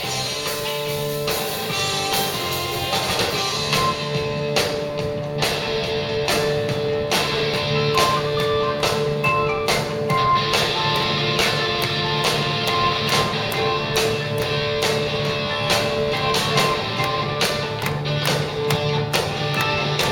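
Hard rock band playing an instrumental passage: electric guitar holding sustained notes over a steady drum-kit beat.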